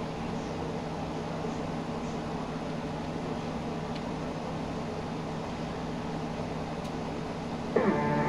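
Steady mechanical hum of a running fan, with a low even drone. Strummed guitar music starts suddenly near the end.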